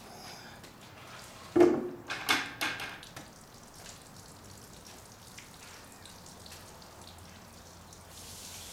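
A bucket of water thrown over a car, splashing onto the bodywork and wet pavement in a few quick splashes about one and a half seconds in.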